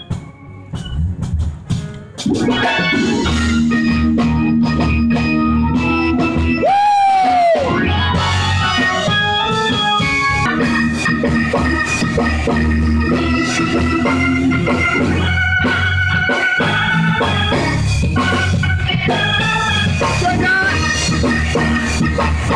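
Organ playing gospel music: sparse, broken chords for about two seconds, then full sustained chords over a heavy bass. About seven seconds in, a brief tone glides up and falls away.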